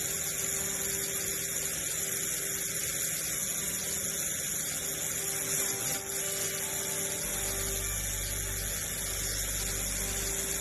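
Electric toothbrush buzzing steadily, with a lower hum joining about seven seconds in.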